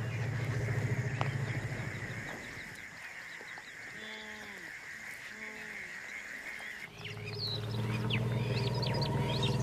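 African elephants rumbling: a long low call that fades out about two seconds in, shorter calls that rise and fall between about four and five and a half seconds, and another long low rumble from about seven seconds in. Birds chirp faintly near the end.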